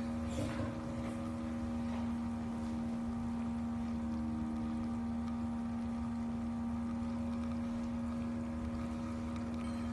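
Portable K-cup coffee maker's small pump motor running with a steady electric hum while it brews, with a couple of faint clicks about half a second and two seconds in.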